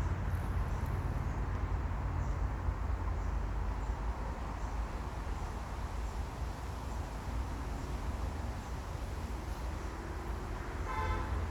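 Steady low rumble of distant traffic, with a brief pitched honk-like sound near the end.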